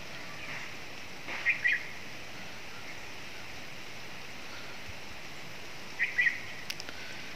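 Short high chirps, a quick pair about a second and a half in and another near six seconds, over a steady background hiss.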